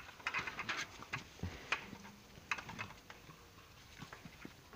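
Dogs play-wrestling on concrete: irregular light clicks and scuffles of their claws and paws.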